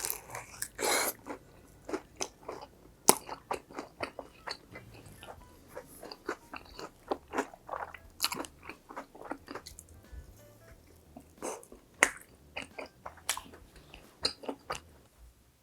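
Close-miked biting and chewing of crispy fried food: a quick run of loud crunches, the sharpest about three seconds in.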